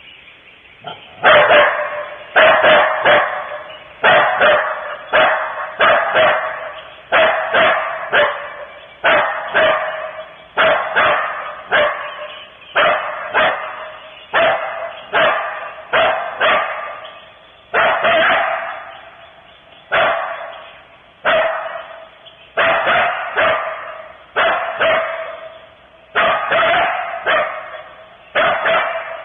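Coyote barking over and over: a long run of sharp barks, about one a second and often in quick pairs, each trailing off.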